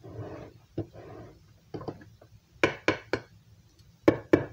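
Sharp knocks on an upturned metal bundt pan, tapped to loosen the pound cake onto the plate beneath. A soft rustling comes first, then three taps about two and a half seconds in and two louder ones near the end.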